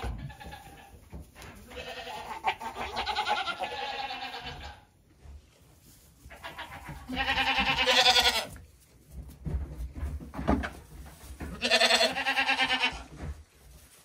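Goats bleating: three long, wavering bleats, the second and third the loudest.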